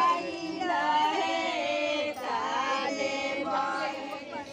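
A group of women singing a traditional Govardhan (Godhan) puja folk song together, unaccompanied, in a continuous melodic line.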